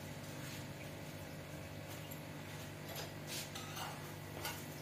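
Quiet kitchen background with a steady low hum, and a few faint light clicks and scrapes from metal tongs handling a paratha in a pan on the stove, in the second half.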